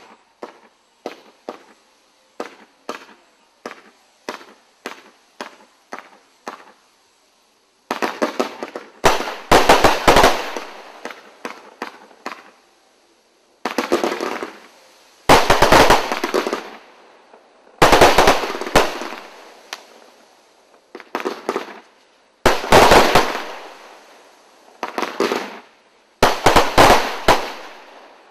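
Chinasky BM-5010 105-shot, 500-gram consumer fireworks cake firing: single shots about two a second for the first six or seven seconds, then louder volleys of rapid-fire reports, each a second or few long, with short pauses between.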